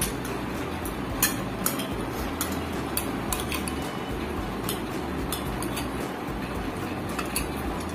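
Spoons and forks clinking and scraping on plates during a meal: scattered light clicks over a steady low background hum.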